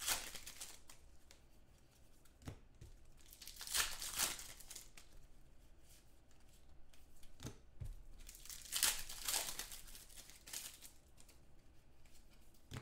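A stack of football trading cards being thumbed through by hand: short papery swishes and snaps every second or two, with a crinkle of the torn foil pack wrapper at the start.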